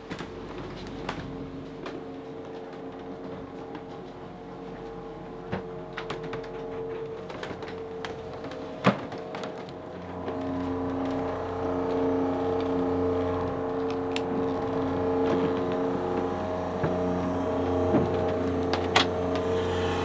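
Steady machinery hum of the sailboat's onboard generator, running to charge the batteries and make water, heard below deck. It grows louder about halfway through, with a few knocks and clicks of handling.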